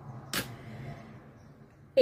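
A single short, sharp click, followed by faint room tone.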